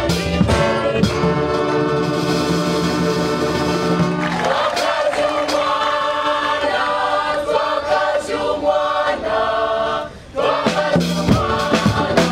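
Mixed choir singing with African hand drums. The first four seconds hold sustained chords, then the singing moves on to a livelier passage. The music drops out briefly about ten seconds in and returns with drum strokes.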